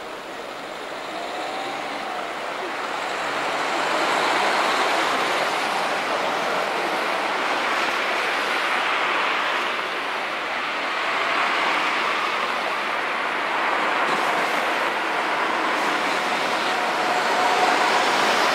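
Low-floor city tram approaching on its tracks and passing close by, over a steady hiss of traffic on wet roads. The noise swells in the first few seconds and then holds level.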